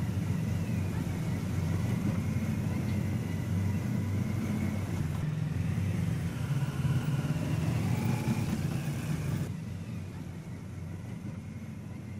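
Steady low rumble of a moving motorcade: the engines and tyres of escorting police motorcycles and a minibus, heard partly as ride noise inside the minibus.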